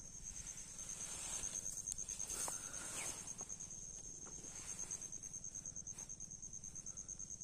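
An insect trilling steadily in a high, fast-pulsing tone like a cricket's. Soft rustling from handling comes in about one to three seconds in.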